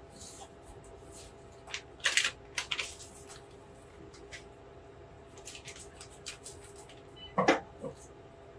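Plastic snack wrapper crinkling and rustling in short scattered bursts as it is handled, the loudest about two seconds in and again near the end. A faint steady machine hum runs underneath.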